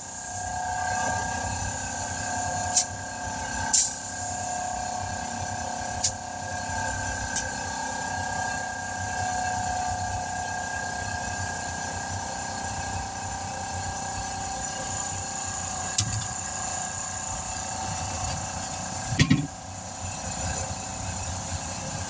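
Tire being inflated through an air hose from a compressor: a steady whine and hiss of running air, with several sharp clicks and a louder knock a little after 19 seconds.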